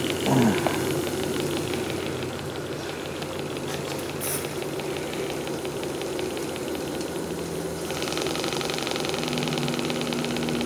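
Hand-built Graham TVR1A model steam engine running fast on steam, a rapid, even chuffing clatter. The clatter turns brighter about eight seconds in.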